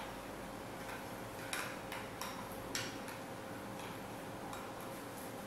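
A metal spoon stirring milk in a small glass bowl, giving a few light clinks against the glass, to dissolve the sugar and instant coffee in it.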